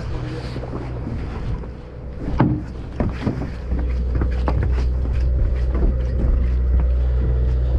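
A fishing party boat's engine drones steadily and low, growing stronger about three and a half seconds in. Scattered knocks and bumps sound over it.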